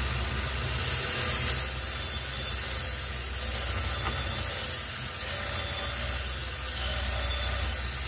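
Belt grinder running with a steady hum while the edge of a splitting axe is pressed to the moving abrasive belt, giving a loud, even grinding hiss from about a second in as the axe is sharpened.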